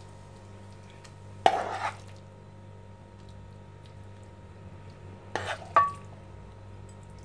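Metal fork clinking and scraping against a pan and baking dish while scooping stuffing into eggplant halves: two short bursts of clatter, about a second and a half in and again near the end, the second with a brief metallic ring.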